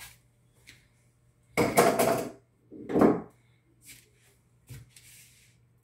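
Handling noise as tools are picked up: a loud rustling clatter about a second and a half in lasting over half a second, a shorter one about three seconds in, then a few faint clicks.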